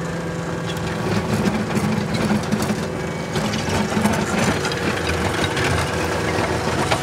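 Caterpillar skid steer with a Cat cold planer attachment running: a steady diesel engine note with a rough, rattling texture that grows louder from about one second in until about four and a half seconds in.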